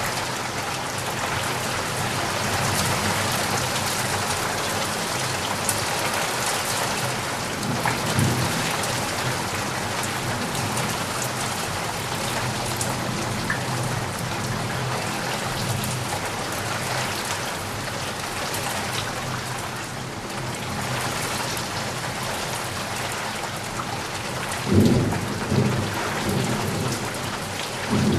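Steady rain falling, with low rumbles of thunder about eight seconds in and again near the end.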